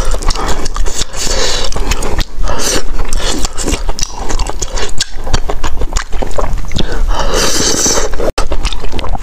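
Close-miked eating sounds: wet chewing and mouth smacking on soft rice and wide glass noodles from a self-heating hotpot, with chopsticks lifting bites from the tray.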